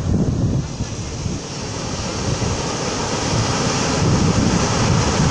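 Sea surf breaking and washing up a pebble beach, the rush growing louder from about two seconds in. Wind rumbles on the microphone.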